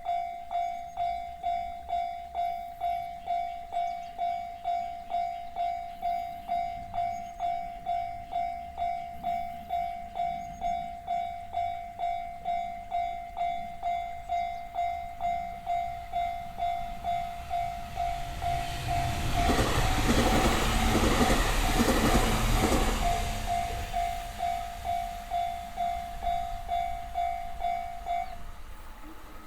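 Japanese railway level-crossing alarm (JR standard electronic bell) dinging at about two strikes a second. A four-car JR East E721-0 series electric train passes from about 18 to 24 s in, its wheels clacking over the rail joints and louder than the alarm. The alarm stops near the end.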